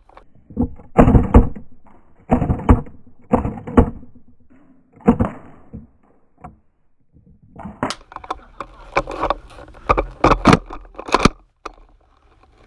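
Gas blowback airsoft pistol firing close to the microphone: sharp cracks with the slide's clack, in short groups of one to three shots. After a pause of about two seconds comes a rapid run of sharp knocks and cracks.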